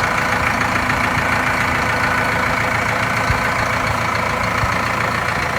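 Farm tractor engine running steadily at idle.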